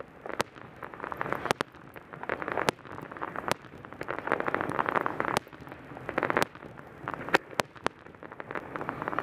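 Fireworks display: dense crackling from glittering star shells, with several sharp bangs of shell bursts scattered through.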